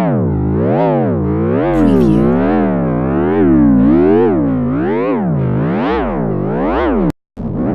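Synthesized sci-fi sound effect: a buzzy electronic tone whose pitch sweeps up and down about twice a second in a steady wobble. It cuts off abruptly near the end, and after a short gap a different, faster-wobbling synth effect begins.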